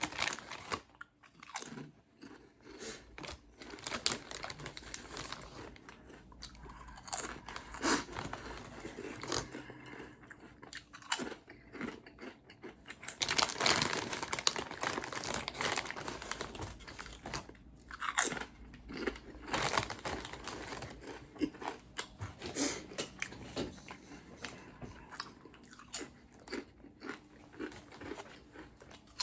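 A person eating chunky potato chips, with irregular loud crunches and chewing. The densest chewing comes about midway through.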